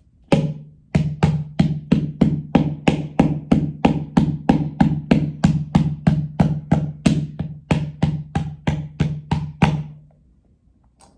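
Music: a steady percussive beat of sharp wood-block-like knocks, about three a second, over a held low note, stopping about a second before the end.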